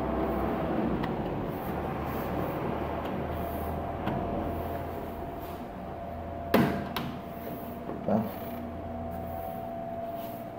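A white glazing-channel profile being pressed and worked into a drywall opening by hand, with a sharp knock about six and a half seconds in and a lighter one about a second and a half later. Under it runs a steady low hum with a faint steady whine.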